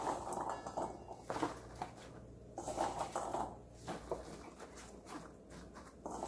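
Peeled garlic cloves being placed and spread by gloved hands on a paper towel in a clear plastic container: soft, irregular clicks and rustling.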